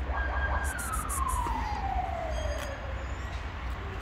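Siren wail: one clear tone held high for about half a second, then falling steadily to a much lower pitch over the next two and a half seconds, over a steady low traffic rumble.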